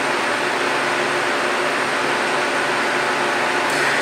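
Steady background hiss with a faint low hum, like an air conditioner or fan running.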